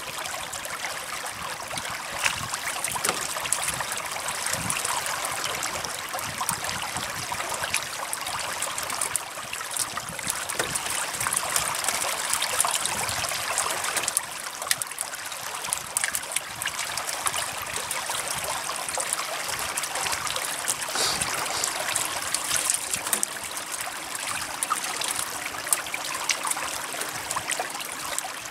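Several hooked fish thrashing at the water's surface on a multi-hook line, a steady splashing with many small sharp splashes throughout.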